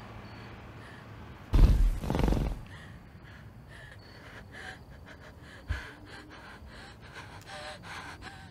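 A loud, breathy snort from a raptor dinosaur about a second and a half in, lasting about a second, followed by a frightened woman's faint, quick gasping breaths and a brief low thud.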